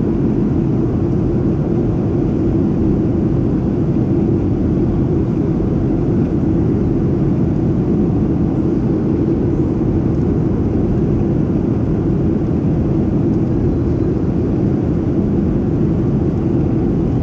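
Steady cabin noise of a Boeing 737-700 in flight, heard from a window seat over the wing: the CFM56-7B engines and the rush of air past the fuselage, a low, even rumble with a constant hum, unchanging throughout.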